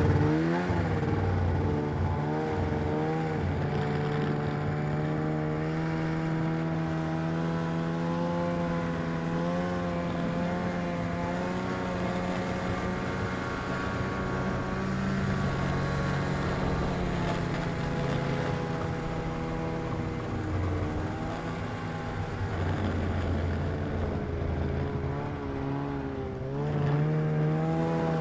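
Snowmobile engine running at a fairly even speed, its pitch wavering slightly with the throttle, then climbing near the end as it is revved up.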